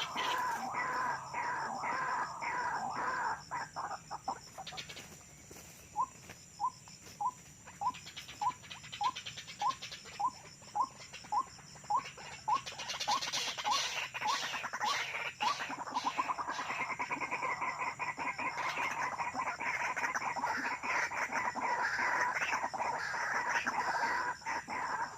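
White-breasted waterhen calls: a long run of short clipped notes, nearly two a second, with busier overlapping calling before and after it. This is the call used to lure the birds into a trap.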